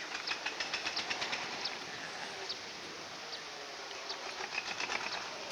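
Small birds chirping: a quick run of short, sharp chirps over the first second and a half, then scattered single chirps, over a steady background hiss.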